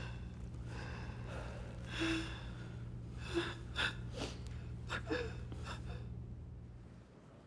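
A man's ragged gasping breaths, a few sharp intakes a second or so apart, over a low steady hum that fades out near the end.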